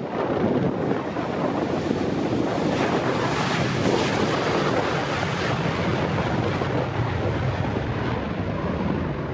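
Strong gusting wind buffeting the microphone: a dense, loud rush of noise with short gusts and no clear tone.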